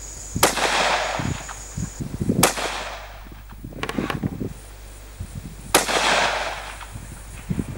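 Three rifle shots from a Howa 1500 bolt-action rifle in .223 Remington, fired about two and three seconds apart. Each sharp report is followed by a trailing echo lasting about a second.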